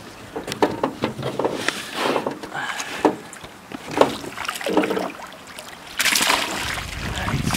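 Water splashing and sloshing as a hooked brook trout thrashes at the surface beside the boat and is scooped into a landing net, with a loud splash about six seconds in as the net takes the fish. Wind rumbles on the microphone near the end.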